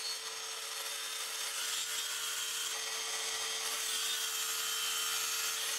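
Bosch plunge track saw running along its guide rail, cutting through a 12mm MDF panel: a steady, even high hiss with a constant hum beneath it.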